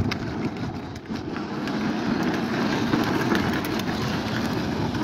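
Fisher-Price Power Wheels Barbie Jeep driving on rough asphalt: a steady rumbling clatter of its hard plastic wheels on the pavement together with its electric drive motors and gearboxes running, now powered by a DeWalt 20V battery. It gets louder about a second in as the jeep comes closer.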